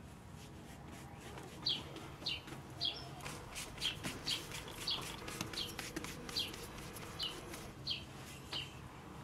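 A bird chirping over and over, short high falling notes about every half second, over light crinkling and tapping from plastic-gloved hands shaping balls of dough.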